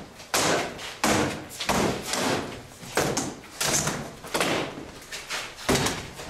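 Rattan swords and spears hitting shields and armour during SCA heavy-combat melee practice: an irregular run of sharp cracks and thuds, one or two a second, each echoing in the large hall.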